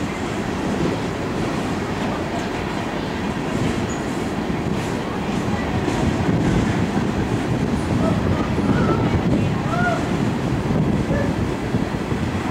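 Empty coal hopper cars rolling past with a steady rumble of steel wheels on rail, slightly louder from about halfway through. A few faint short squeaks come in around eight to ten seconds in.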